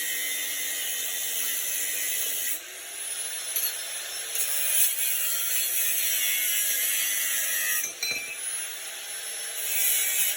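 Power tool cutting through steel motorcycle frame tubing: a steady high hiss of metal being cut over a motor whose pitch wavers as the load changes, dipping briefly about eight seconds in.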